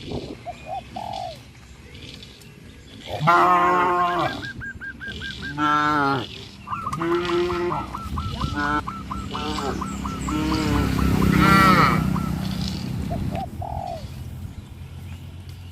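Geese honking in repeated bouts of calls, with quieter gaps between, loudest about a third of the way in and again past the middle.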